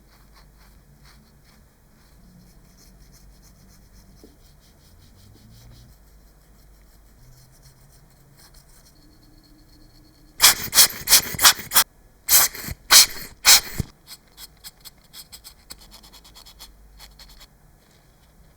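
Quiet handling clicks and taps, then a loud run of rapid back-and-forth scraping strokes on a hard surface for about three seconds, with a short break partway through, trailing off into lighter ticks.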